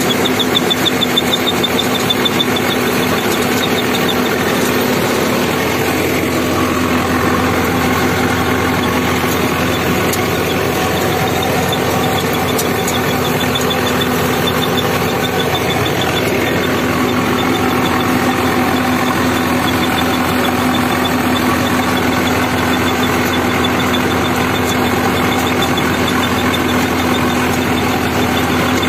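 60 hp Preet 6049 tractor's diesel engine running steadily under load, driving a rotary tiller through the soil, with a high thin whine that comes and goes over the engine.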